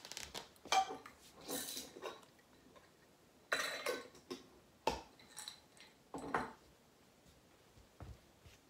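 Several irregular bursts of light clinking and rattling, with short quiet gaps between them.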